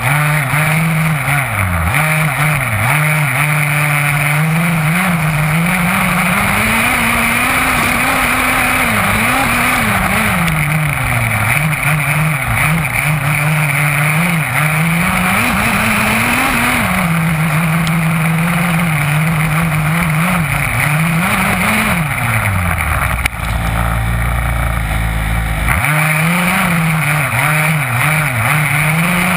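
Small two-stroke petrol engine of an HPI Baja 5B 1/5-scale RC buggy, heard from a camera mounted on the car, revving up and down constantly as the buggy is driven hard. About 23 seconds in there is a knock, and the engine sound drops low and steady for a couple of seconds before the revving starts again.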